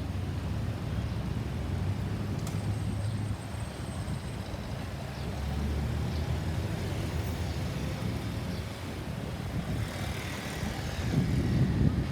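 Road traffic: motor vehicle engines and tyres rumbling past, growing louder near the end.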